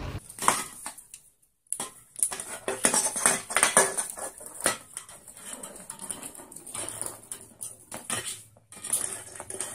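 Aluminium drink can knocking and rattling on a wooden floor as a sun conure pecks and shoves it with its beak: an irregular run of sharp clicks and knocks, starting about two seconds in.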